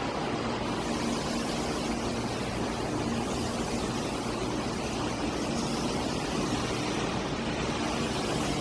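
A vehicle engine running steadily under a continuous hiss, with a faint hum that comes and goes.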